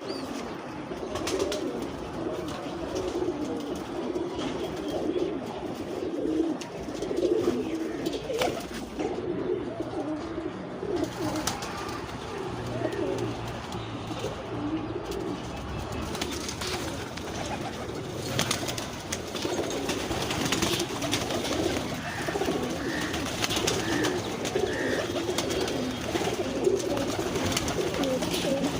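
A flock of domestic pigeons cooing, many birds overlapping in a continuous low cooing, with scattered sharp clicks.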